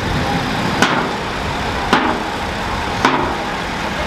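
Hay wagon rolling along, a steady low rumble with a sharp knock about once a second.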